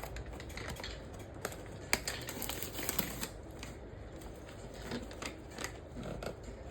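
Butter-flavoured microwave popcorn popping inside its bag: scattered, irregular sharp pops.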